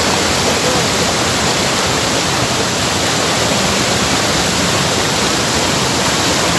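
Waterfall pouring into a rocky pool: a loud, steady rush of white water with no breaks.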